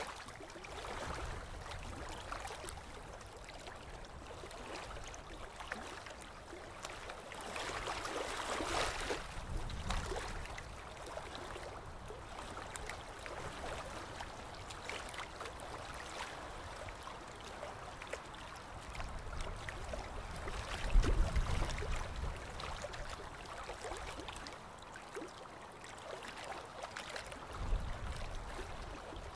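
Steady shoreline ambience of water washing and trickling, with a couple of brief low rumbles in the second half.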